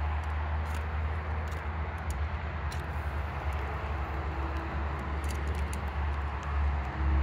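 Mussels sizzling on a charcoal grill, the juices still bubbling inside the shells, with scattered small crackles. A steady low rumble runs underneath.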